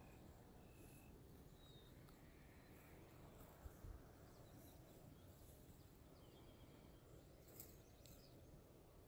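Near silence: faint outdoor background with a few brief, faint high chirps and a soft bump a little under four seconds in.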